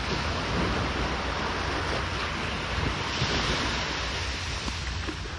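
Steady wash of sea surf breaking on the beach, with wind buffeting the microphone.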